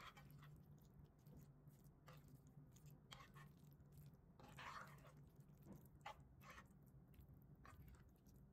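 Near silence: faint scattered soft clicks and squishes, some spaced about a second apart, over a low steady hum.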